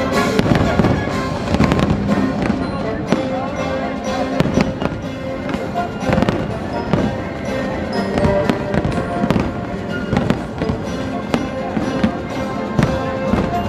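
Fireworks display: a rapid, continuous run of aerial shells bursting and crackling, with music playing underneath.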